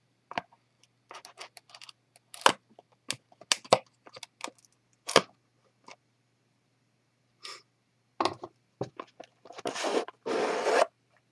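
A cardboard trading-card box being opened by hand: a scatter of sharp cracks and clicks as the box is worked at, then near the end a longer scraping rustle as the lid comes off.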